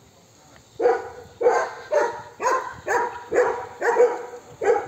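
A dog barking repeatedly, about two barks a second, starting about a second in.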